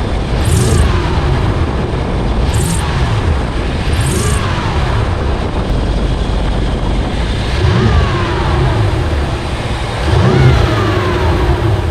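BMW M5 V8 engine revved in about five short blips, each rising and falling in pitch. A short high squeak comes with each of the first three blips, the belt squeak being diagnosed.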